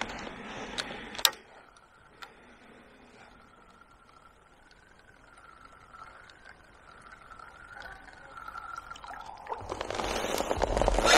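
A few sharp clicks of fishing tackle being handled, then a faint wavering tone. About nine seconds in, water splashing and trickling builds up and grows loud, as pole tackle and fish are worked at the canal edge.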